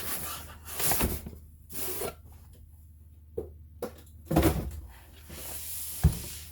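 Handling of the impact wrench's tool bag and its packaging: irregular rustling and rubbing with a few light clicks and one sharper knock near the end.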